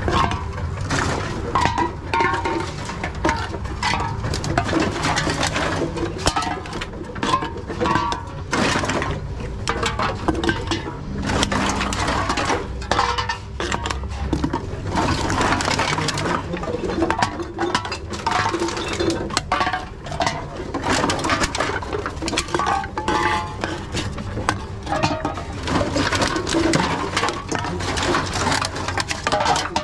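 Aluminium drink cans and plastic bottles clinking and clattering as they are handled from a plastic crate and fed one at a time into a reverse vending machine, many irregular knocks and clinks over a steady low hum.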